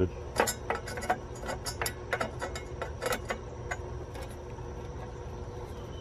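Screwdriver slipping and scraping on a rusted screw head with a rounded-out slot on a metal disconnect box cover, giving a quick, irregular run of small metallic clicks and scrapes that stop after about three and a half seconds.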